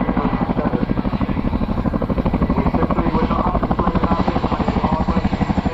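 Boeing Chinook tandem-rotor helicopter flying close, its rotors giving a heavy, rapid blade slap of about a dozen even thuds a second.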